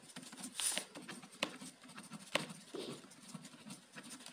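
Pen writing on paper: faint scratching of the strokes, with a few sharp taps as the pen tip strikes the page.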